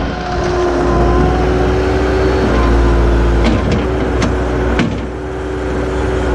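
Small wheeled Bobcat skid steer's engine running steadily at working speed, with a steady whine from the hydraulics and a few light clicks; the auxiliary hydraulics lack the pressure to open the 4-in-1 bucket's clamp with dirt in it.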